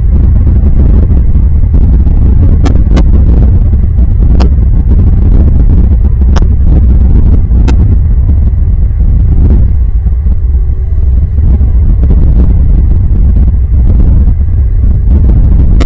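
Loud, steady low rumble, with a few sharp clicks in the first half.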